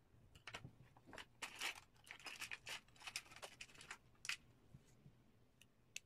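Plastic pry tool scraping and prying inside an opened iPhone 5, a run of small crackling scratches and clicks lasting about four seconds, thickest in the middle.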